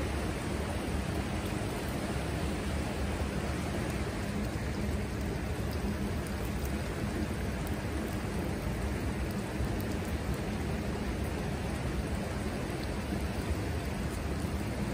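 Steady rush of flowing water, an even hiss with no distinct splashes or calls.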